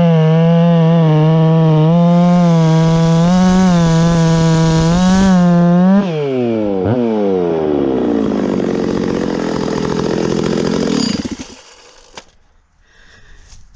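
Stihl 066 Magnum two-stroke chainsaw, freshly rebuilt top end, running at full throttle in a cut with its pitch wavering under load. About six seconds in the throttle is released and the engine falls sharply to idle, then it stops about eleven seconds in.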